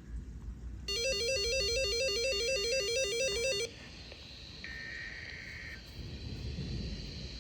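Electronic alert tones: a harsh two-tone warble switching rapidly between two low pitches, about four switches a second, for nearly three seconds and then cutting off. Hiss follows, with a shorter, higher electronic burst lasting about a second.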